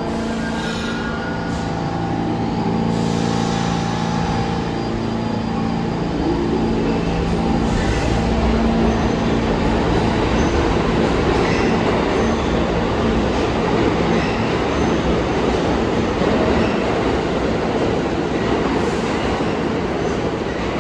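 New York City subway train running through the station. Steady pitched tones sound over the first few seconds, then a loud, dense rumble of wheels on rail builds from about six seconds in and holds.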